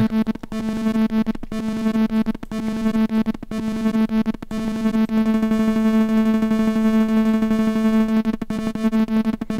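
Kaivo software synthesizer (granular excitation through a gut-string physical-model resonator) sounding a steady pitched tone with a rapid flutter. Its envelope 2 is in repeat mode, retriggering about twelve times a second, while an LFO sweeps the envelope's attack and release times. The level dips briefly about once a second.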